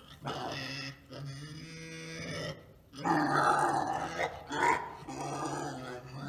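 A pig grunting in long, drawn-out, low grunts while it lies in its straw nest as the straw is pulled away. The grunts turn louder and rougher about three seconds in.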